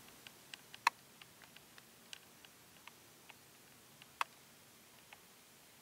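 Faint, irregular small clicks and ticks over a quiet room, two of them sharper and louder, about a second in and about four seconds in.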